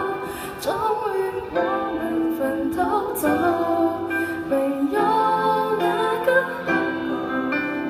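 A young woman singing a song into a microphone with a live band accompanying her on guitars, bass and drums.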